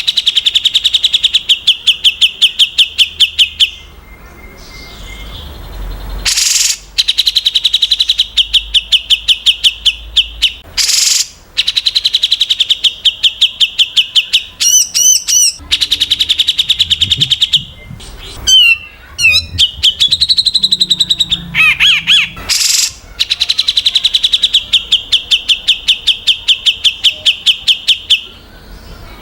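Songbird singing a fast 'tembakan' (rapid-fire) song: long trills of sharp repeated high notes at about seven notes a second, each run lasting several seconds. The trills are broken by a few short bursts of varied whistles and chatter near the middle.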